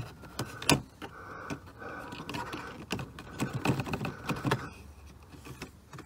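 Scattered clicks and light knocks of hand tools and plastic dashboard trim being handled and worked loose under a car's dashboard, the sharpest click about a second in, over a faint steady background hum that stops near the end.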